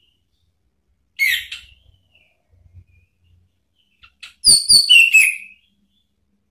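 Orange-headed thrush calling: a short chirp about a second in, then near the end a quick run of sharp clicks followed by several high whistled notes that slide downward.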